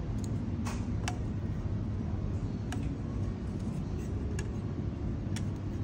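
Steady low background rumble with about six scattered light clicks and clinks of tableware on metal pots, one just after a second in ringing briefly.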